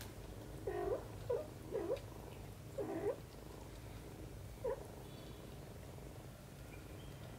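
Cat purring steadily while grooming a kitten, broken by five short cat chirps that dip and rise in pitch: four in the first three seconds and one about halfway through.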